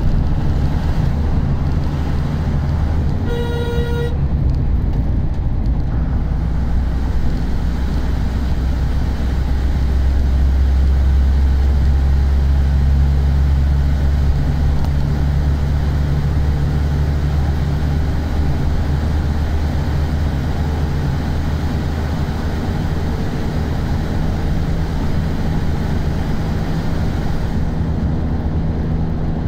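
Steady low rumble of engine and road noise heard from inside a moving vehicle. A single short horn toot sounds about three seconds in.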